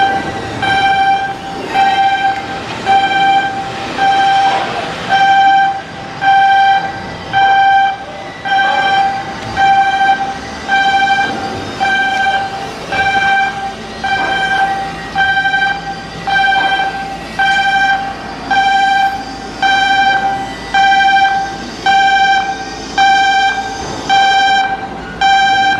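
Warning alarm beeping steadily: one pitched tone sounding about once a second, each beep lasting most of the second.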